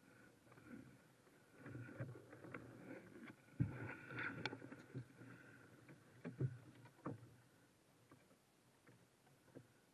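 Faint knocks and rustling as a kayak paddle is handled against a burlap-covered kayak, with a few light thumps of the paddle or gear against the hull.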